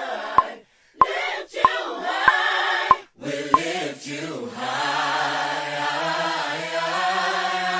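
A cappella vocal group singing, with a sharp click on each beat, about one and a half a second, for the first few seconds. From about four and a half seconds in, the voices hold one long sustained chord over a low bass note.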